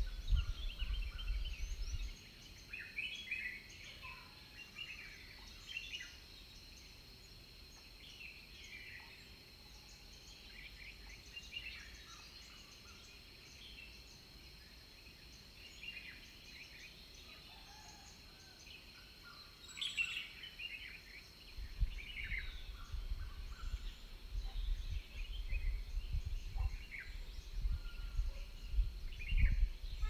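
A chorus of wild birds calling, with many short chirps and whistled notes from several birds scattered through the whole stretch, over a steady high thin tone. A low rumble sits underneath at the start and again through the last third.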